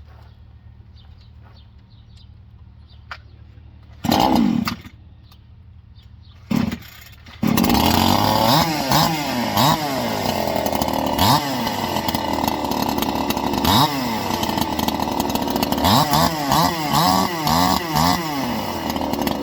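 Supmix 54cc two-stroke chainsaw: two short bursts of the engine firing, then it catches about seven seconds in and runs. It is revved up and down over and over, with quicker throttle blips near the end.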